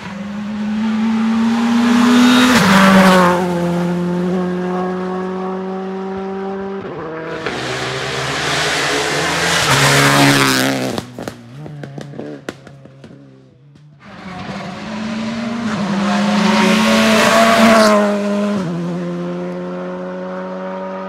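Rally car engines at high revs: a car approaches and passes close by, its engine pitch stepping down at gear changes, with exhaust crackles as it moves away. About 14 s in, another car approaches and passes the same way.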